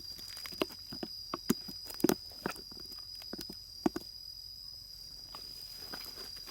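A run of irregular light knocks and crunches, thinning out after about four seconds, over a steady high-pitched insect drone.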